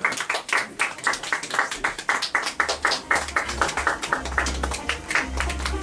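Rapid, even hand clapping, with a low bass line of music coming in about two and a half seconds in.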